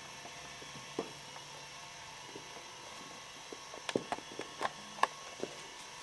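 Steady faint hiss with a few short clicks and knocks: one about a second in, then a quick cluster in the second half, the loudest about five seconds in.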